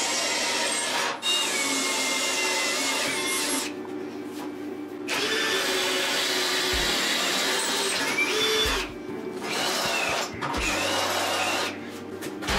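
Power drill boring through steel plate, the bit cutting with a high wavering squeal. It runs in several stretches with short pauses between.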